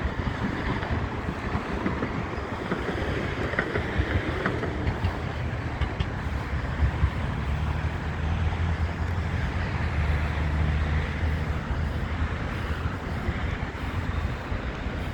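City street traffic: a steady wash of passing vehicles, with a heavy vehicle's low engine hum swelling in about halfway through and fading toward the end.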